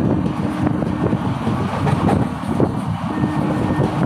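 Passenger train running at speed, heard from an open carriage doorway: a steady rumble of wheels on the rails mixed with wind buffeting the microphone.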